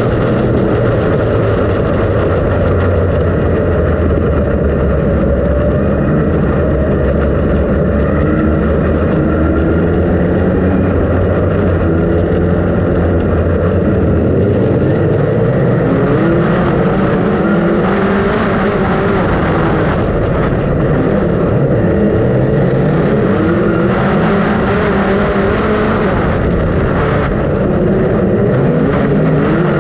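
Onboard sound of a SpeedSTR dirt-track sprint car's engine at racing speed. It runs at a steady low pitch at first, then from about a third of the way in the revs rise and fall again and again as the driver gets on and off the throttle through the turns.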